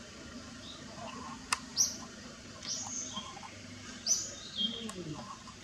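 A bird calling in the forest: short high chirps, each with a falling tail, repeated about once a second. There is one sharp click about one and a half seconds in.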